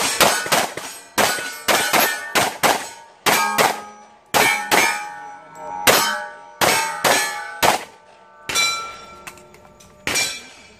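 A rapid string of gunshots with bullets striking steel target plates, each hit ringing with a metallic clang. The impacts come several a second at first and are more spaced out in the second half.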